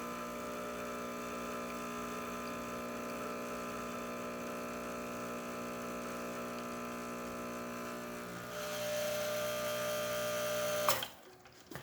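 Expobar espresso machine's vibration pump buzzing steadily while pulling a shot. It grows louder about three-quarters through, then cuts off abruptly with a click as the shot ends.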